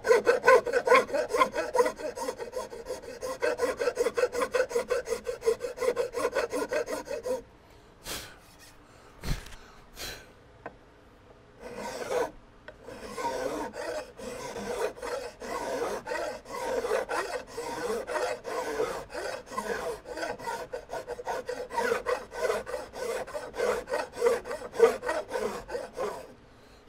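Flat metal hand file rasping in quick back-and-forth strokes across the end of a wooden gunstock, taking hardened acrylic glass bedding down flush. The filing stops about seven seconds in for a few seconds, with a few light knocks, then starts again and runs on steadily.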